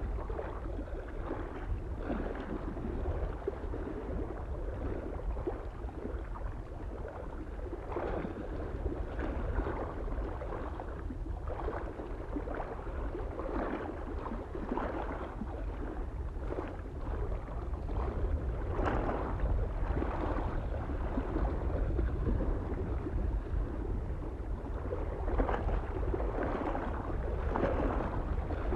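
Small waves lapping and splashing irregularly against a lake shore, over a steady low rumble of wind on the microphone.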